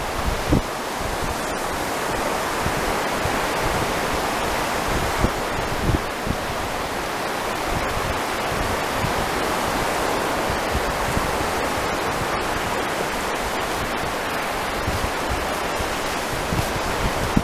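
Steady rush of sea surf breaking along the shore, with wind gusting against the microphone.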